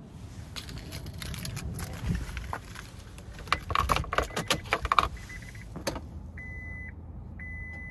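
A set of car keys with a remote fob jangling and clicking as they are handled, then an electronic dashboard warning chime beeping steadily at one pitch, about once a second, near the end, with the ignition switched on but the engine not running.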